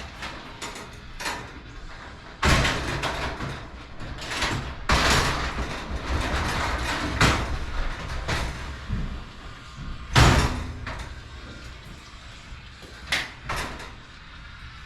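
A sectional garage door moving along its tracks for about five seconds, with scattered clicks and knocks, then a sharp loud knock about ten seconds in.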